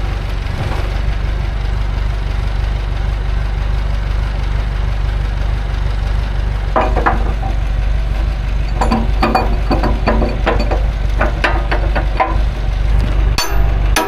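Diesel digger engine idling steadily. From about halfway through come a run of metal clanks and knocks, with one sharp knock near the end.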